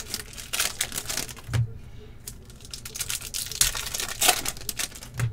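A foil trading-card pack wrapper torn open and crinkled by hand: an irregular run of crackling rustles, loudest in a few sharp crackles in the second half.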